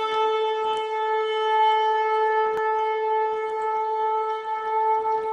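A horn blowing one long, steady held note.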